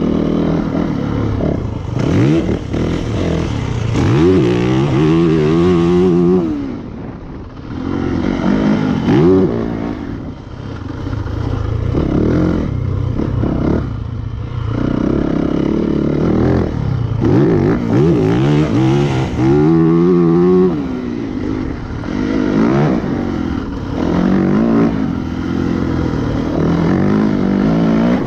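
2019 Yamaha YZ450FX's four-stroke single-cylinder engine being ridden hard around a motocross track: the revs climb and fall again and again as the throttle is opened and shut, with a few short lulls where the throttle is chopped.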